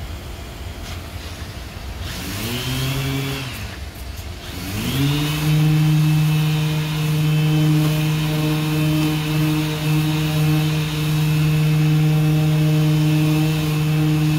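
Random orbital sander with a dust-extraction hose, spun up briefly and wound down about two seconds in, then started again and running at a steady pitch while sanding body filler on a car's wheel arch.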